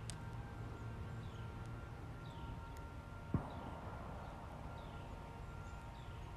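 Outdoor ambience: a bird repeats a short, falling chirp about every three-quarters of a second over a steady low rumble, with one sharp knock about three seconds in.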